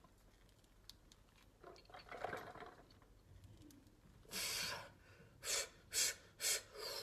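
Weightlifter breathing hard between squat reps: a faint strained exhale about two seconds in, then a long hissing breath followed by four short, sharp breaths about half a second apart.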